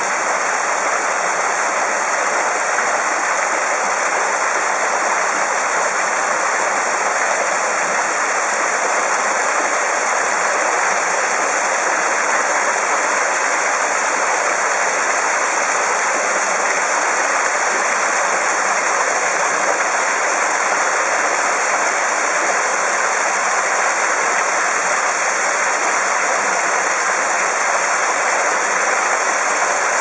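Several streams of water pouring from spouts in a stone wall and splashing onto the stone ground below: a steady, unbroken rush of falling water.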